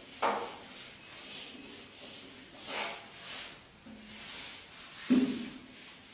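Whiteboard duster rubbing across a whiteboard in a series of wiping strokes, with two louder thumps about a third of a second in and about five seconds in.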